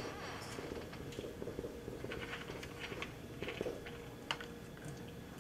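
Marker tapping and scratching on a whiteboard in short, quick strokes, with one sharper click near the end, over a faint steady room hum.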